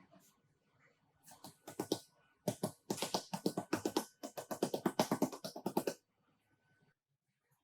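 Background music: a fast run of crisp percussive beats that stops abruptly about six seconds in.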